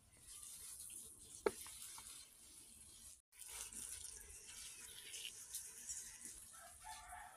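Water poured from a plastic bottle onto the soil of a potted plant: a faint, steady trickle and splash, broken off briefly a little after three seconds in.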